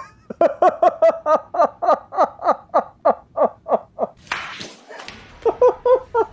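A man laughing hard: a long run of rapid ha-ha bursts, about four or five a second, each dropping in pitch and growing fainter, then a breathy gasp and a few more laughs near the end.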